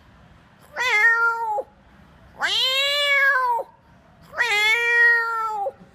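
A man imitating a cat, giving three long, drawn-out meows about a second apart.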